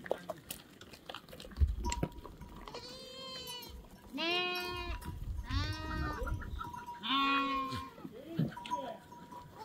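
Livestock bleating: four or five separate high bleats, each under a second long. A sharp knock comes about a second and a half in.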